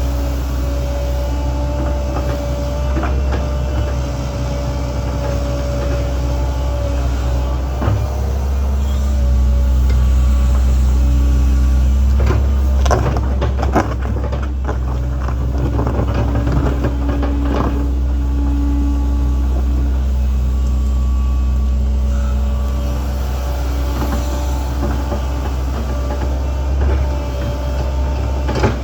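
Link-Belt 2700 excavator's diesel engine running steadily, a strong low drone with a pitched whine over it. In the middle there is a spell of clattering and knocking as the bucket works through soil and stone.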